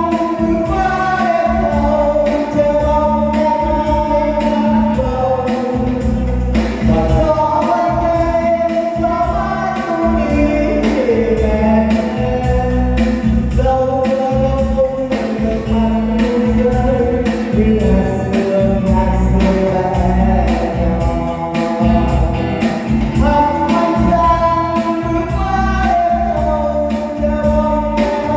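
A Vietnamese song: a sung melody over band accompaniment with a steady beat.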